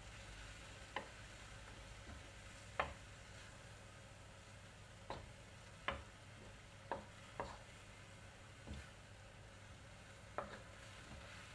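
Wooden spatula clacking and scraping against a metal wok while stir-frying chicken and vegetables, with about eight irregular knocks over a faint, steady sizzle.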